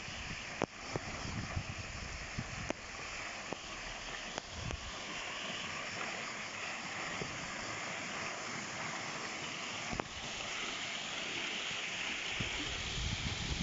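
Water falling down a stepped stone cascade into a pool, a steady rushing splash, with a few faint clicks.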